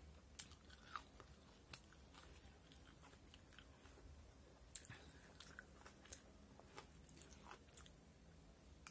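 Faint chewing of fried chicken pakoda, mouth closed, with soft clicks here and there.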